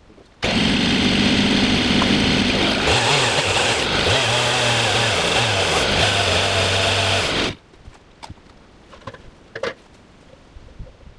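A motorised power tool runs for about seven seconds, starting and stopping abruptly, its pitch wavering and dropping partway through.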